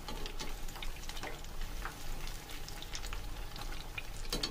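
Breaded potato drumsticks deep-frying in hot oil in a pan: a steady sizzle full of small crackles and pops, with a brief louder crackle near the end.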